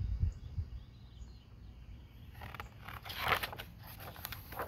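A paper page of a picture book being turned, rustling and crackling for about two seconds, after a few low thumps near the start.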